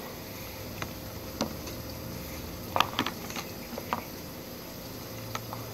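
Scattered light clicks and knocks of hard plastic storage boxes and their lids being handled, about seven in all, the loudest a pair near the middle, over a low steady hiss.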